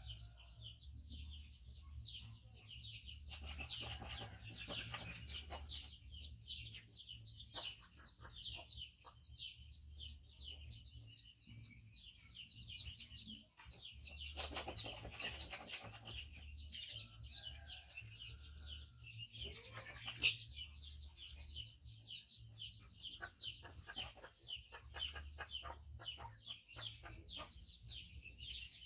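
Many birds chirping in quick, overlapping high notes, with chickens among them, over a steady low hum.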